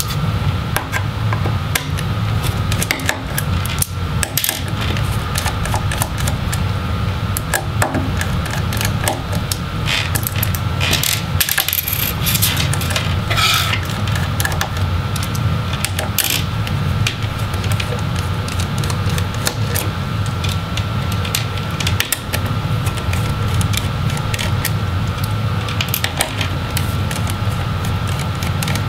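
Small screwdriver clicking and scraping on the metal display hinges of a Dell Inspiron 15 7567 as their Phillips screws are backed out, with light clinks of loose screws and metal parts, thickest in the middle. A steady low hum runs underneath throughout.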